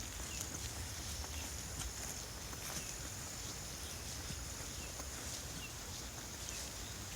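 Steady high-pitched drone of insects, with faint scattered clicks and rustles of someone walking through grass.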